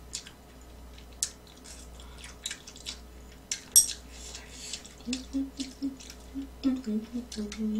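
Eating sounds: metal chopsticks clicking against a stainless steel pot while ramyeon noodles are slurped and chewed. Near the end come a run of short low hums while chewing.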